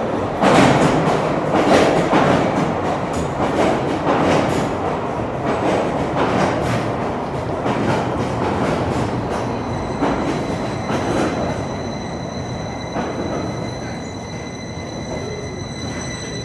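Electric cave-railway train running into an underground station. The rumble rises sharply about half a second in, as the carriages pass close, and the wheels clack over the rail joints about once a second. From about ten seconds in, the wheels add a steady high squeal.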